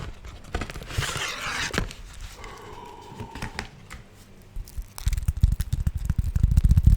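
Sticky beeswax food wrap being crinkled, pressed and peeled apart in the hands close to the microphone, with crackles and rustles. About five seconds in it turns to louder, rapid low crackling and tapping.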